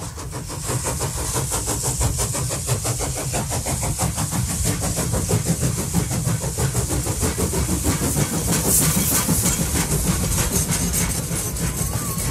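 A steam-hauled train running, heard from one of its carriages, with a fast, even beat.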